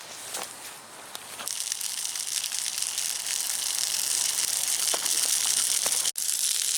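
Pork chops sizzling over a campfire: a steady hiss that builds up about a second and a half in, after a few light clicks and crackles.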